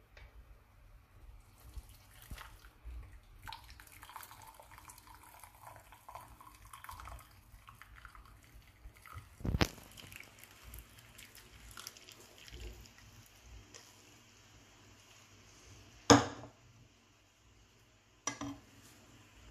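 Hot liquid poured from a saucepan through a metal mesh tea strainer into a glass mug, trickling and dripping through the first several seconds. A few sharp knocks follow, the loudest about sixteen seconds in.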